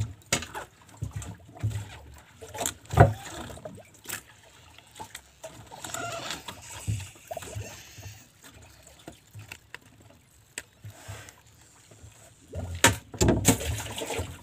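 Handline fishing from a small open boat: irregular knocks and thumps of line and gear being handled against the hull, with water against the boat. The loudest knock comes about three seconds in, and a cluster of louder knocks comes near the end.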